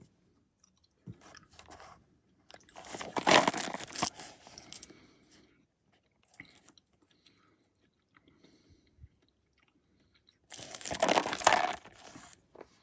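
A person chewing a jelly bean with the mouth close to the microphone: loud crunchy chewing about three seconds in and again near the end, with quieter chewing in between.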